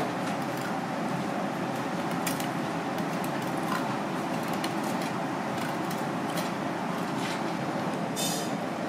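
Steady background noise with a faint hum that cuts out about three-quarters of the way through, and a few light clicks and taps, one short clatter near the end.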